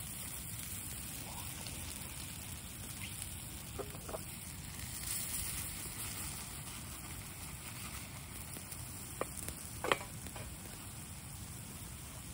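Batter sizzling in hot oil in a black steel frying pan, a steady hiss. A few sharp pops stand out, the loudest about ten seconds in.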